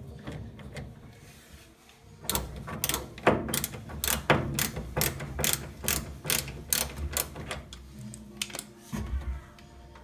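Ratcheting screwdriver clicking in quick, irregular runs as a screw is backed out of the washer's drain pump mount. The clicking starts about two seconds in and goes on until near the end.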